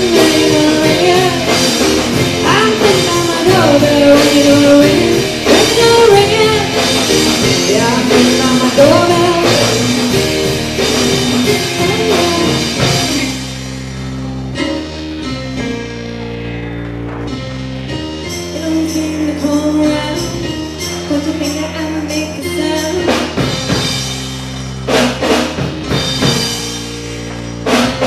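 Live rock band playing, with a singer over drums for about the first half. About halfway through it drops quieter into an instrumental passage of held, stepping notes, with scattered percussion hits near the end.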